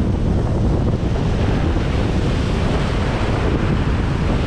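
Surf washing over the rocks of a breakwater, a steady rushing noise, with wind buffeting the microphone.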